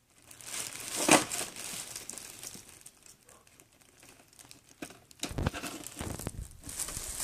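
Crinkling and scraping as a knife peels and cuts away a fuzzy adhesive pad inside an Xbox 360, with a sharp rustle about a second in and heavier handling noise near the end.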